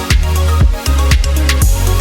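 Electronic dance music with a heavy bass line and a steady kick-drum beat, about two beats a second.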